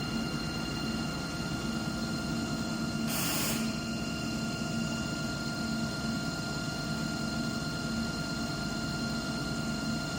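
CNC lathe running an automatic turning cycle: a steady machine hum with several constant whine tones and a pulsing low tone, and a brief hiss about three seconds in.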